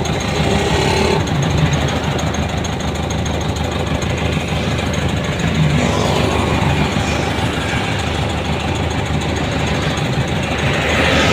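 Vehicle engine running steadily, heard with road noise while travelling.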